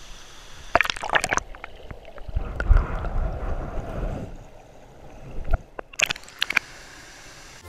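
Muffled gurgling and sloshing of a rocky mountain stream heard with the camera underwater, with a louder churning stretch in the middle. A few sharp clicks come about a second in and again near six seconds.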